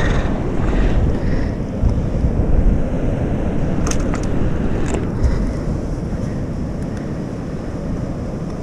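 Wind buffeting the microphone, a steady low rumble over the wash of surf breaking on the rocks. A few sharp clicks come around four and five seconds in.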